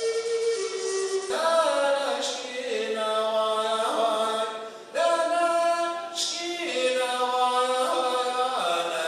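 A held wooden flute note ends about a second in, then a man sings without accompaniment: long held notes that step up and down in pitch, with a short break for breath about halfway through.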